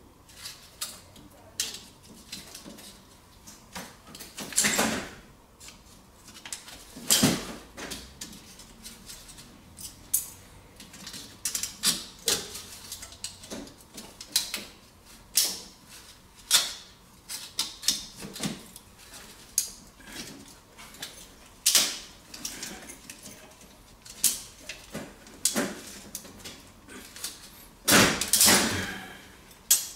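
Hand tool clinking and knocking against the copper pipe end and fitting of a baseboard heater element: irregular sharp metallic clicks and clanks, with a few louder knocks.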